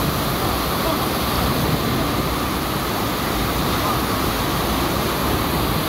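Overflow from a full village tank spilling over a stone weir and tumbling down rocky steps: a steady rush of falling water.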